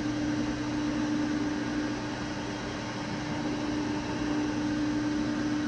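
Manual metal lathe running steadily: a constant motor hum with one clear held tone over an even hiss.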